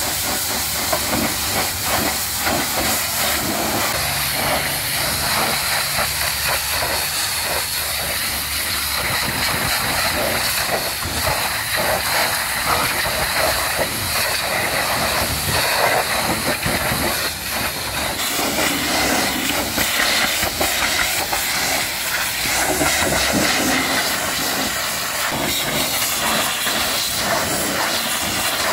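High-pressure washer spraying water, a steady loud hiss. Its tone shifts about two-thirds of the way through.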